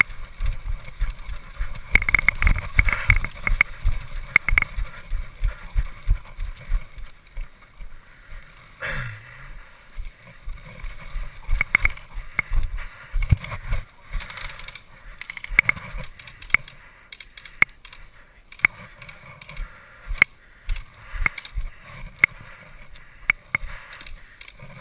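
Footsteps and the rattle of carried gear on a moving player, with a scattered run of sharp clicks. The thumps are thick and quick for the first few seconds, then come more sparsely, and about nine seconds in there is a short sweep falling in pitch.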